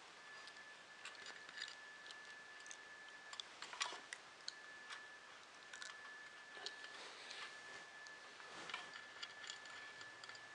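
Faint, irregular small clicks and taps of hands handling the printer's wiring and small parts, with a small cluster of clicks about four seconds in. Under them runs a faint thin high tone that keeps breaking off.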